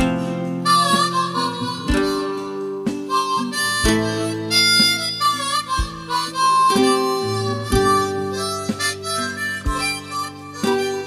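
Instrumental music: a harmonica playing a slow melody of held, bending notes over acoustic guitar accompaniment.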